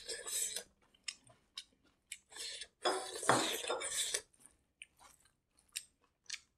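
Close-up eating sounds: a bare hand mixing rice with egg-curry gravy on a metal plate, with wet squishing and small clicks and taps of plate and bowl, loudest about three to four seconds in, with chewing in between.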